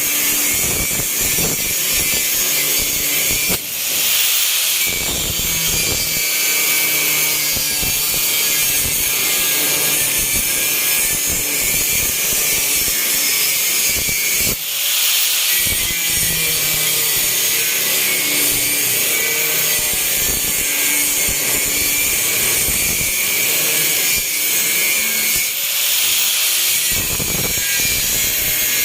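A power tool working on car body metal, running with a loud, harsh high-pitched hiss and brief breaks about every ten seconds.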